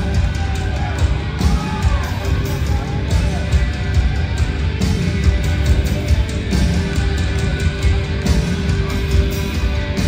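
Rock band playing live and loud: drums with a steady beat, bass guitar and distorted electric guitar.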